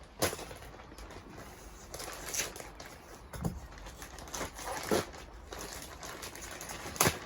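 Handling noises from plastic buckets and a fertiliser pack being moved: a few sharp knocks and rustles, the loudest just after the start and near the end.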